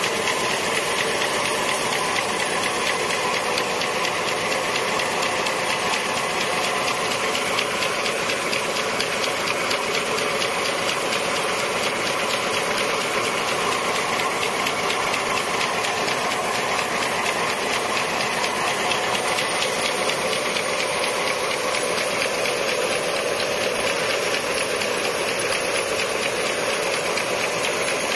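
Automatic ice cream paper cone die-cutting and forming machine running: a steady, fast mechanical clatter with a hiss over it.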